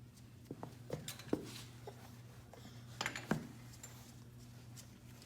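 Metal parts clinking and knocking as hydraulic coupler fittings and tools are handled, in two clusters of sharp clicks about a second in and about three seconds in, over a steady low hum.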